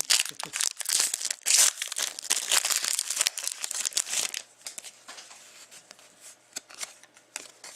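Crinkling and tearing of a hockey card pack's wrapper as it is opened and handled: dense crackling for about four seconds, then only a few faint clicks and rustles.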